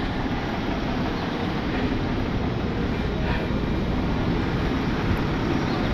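Tow truck engine running steadily while the truck creeps forward, towing a car on its wheel lift.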